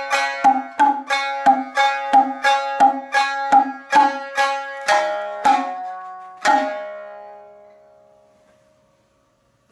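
Shamisen playing a steady run of plucked notes, about three a second, which slows and ends on a final note that rings out and fades to silence: the close of the piece.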